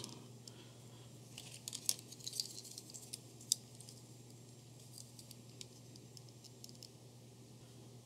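Faint clicks and light rattles of a milliohm meter's four-wire test clips being handled and clipped onto a Deans RC connector, mostly in the first half. A low steady hum runs underneath.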